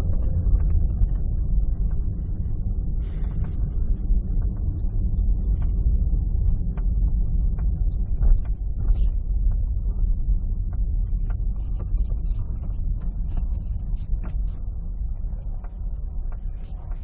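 Steady low road rumble inside the cabin of a moving Hyundai Accent, with short, irregular creaks from the driver's door.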